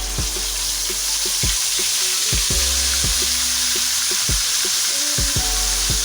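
Marinated chicken tikka pieces shallow-frying in hot oil, a steady sizzle.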